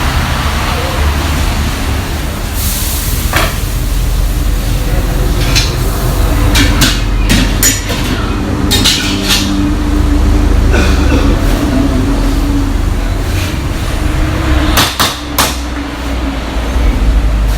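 Restaurant kitchen cooking: a metal spatula clanks and scrapes against a wok in quick irregular strikes, over a steady low rumble. A short hiss comes about three seconds in.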